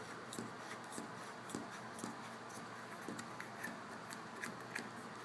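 Light, irregular clicking and scraping of hands working the small screw-on pinion cap of a door closer, several small clicks a second.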